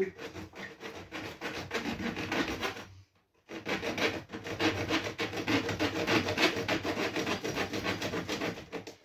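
A machete blade sawing through an old plastic water pipe, in quick back-and-forth strokes; the strokes stop briefly about three seconds in, then start again.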